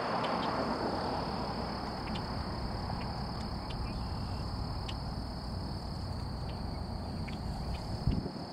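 Distant jet engine rumble from a twin-engine regional airliner on the runway, heaviest in the first second and then steady. Over it runs a steady high-pitched insect drone with scattered faint chirps, and there is a brief low thump near the end.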